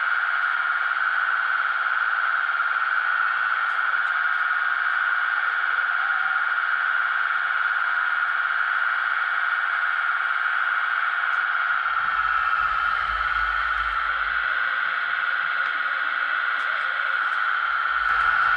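Steady high-pitched whine from a 1:16 radio-controlled CAT 297D compact track loader model, unchanged while the loader works. A low rumble joins it about twelve seconds in and again near the end.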